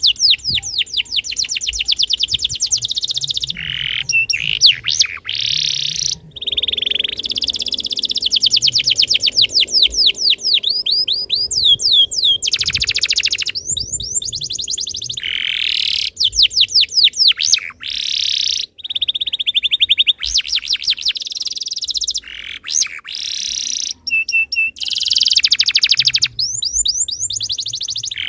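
Domestic canary singing: long rolling trills and fast runs of repeated high notes, in phrases of a few seconds broken by short pauses.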